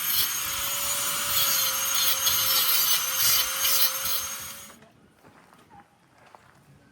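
A power tool running under load and cutting, with a steady whine over a hissing, grating noise; it stops about five seconds in.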